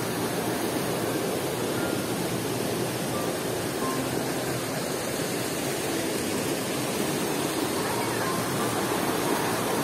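Steady rush of water from a rocky forest stream spilling between boulders.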